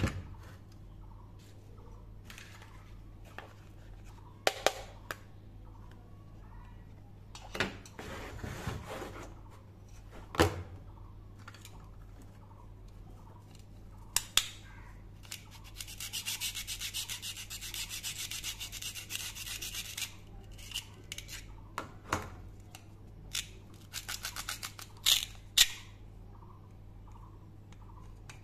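Hard plastic toy fruit being handled and cut apart with a plastic toy knife: scattered clacks and taps of plastic on plastic, and in the middle a rasping crackle of about four seconds as the velcro holding the fruit halves tears apart.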